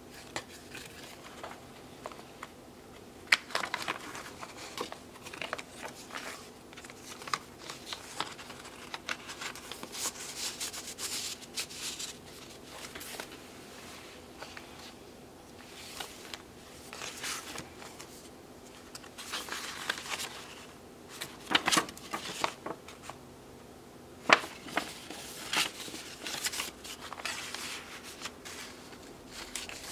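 Paper rustling and crinkling as the pages, tags and tucked inserts of a handmade junk journal are turned and handled, in irregular spells, with a few sharp taps, about three seconds in and twice past the twenty-second mark.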